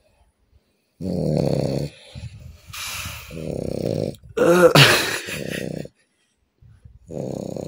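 A man snoring loudly in his sleep: a series of rasping snores with breathy gaps between them, the loudest a little past the middle.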